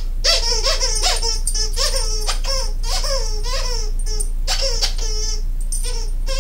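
Owl dog toy squeaking over and over as the dog chews it: rapid squeaks that bend up and down in pitch, about three or four a second, with brief breaks past the middle.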